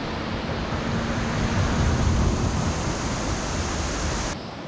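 Wind buffeting the microphone: a dense, rumbling rush of noise that cuts off abruptly near the end.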